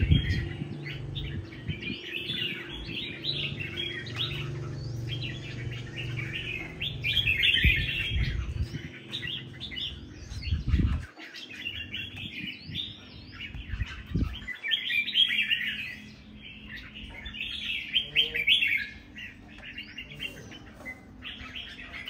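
Caged red-whiskered bulbul singing: bursts of quick chirpy warbles, repeated again and again. A low rumble runs under the first half, with a few dull thumps around the middle.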